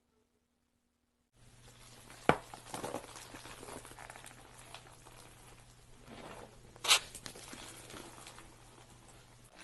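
Slime being played with: a crackling, sticky patter that starts about a second and a half in, with two sharp pops about four and a half seconds apart.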